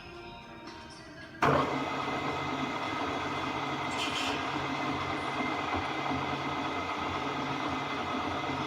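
Okuma & Howa STM 2V vertical milling machine switched on about a second and a half in, its motor then running steadily with a constant hum and whine.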